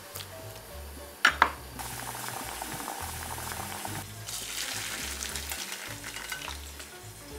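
Sliced acorn jelly pushed off a knife into a pan of hot water on a gas burner, the steel blade clicking twice against the pan about a second in, then a steady hiss of the water. About four seconds in, the water and jelly are poured from the pan through a mesh strainer into a stainless steel bowl, a louder splashing pour. Soft background music with low notes plays underneath.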